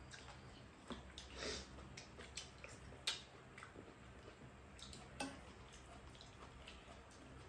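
Quiet table eating sounds: metal spoons and chopsticks clicking a few times against ceramic bowls, with a soft slurp of soup about a second and a half in.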